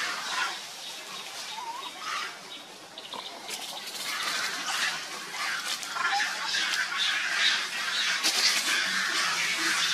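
Dry leaf litter rustling and crackling as macaques move about on it, with short high squeaks and chirps scattered through; the crackling gets busier about halfway through.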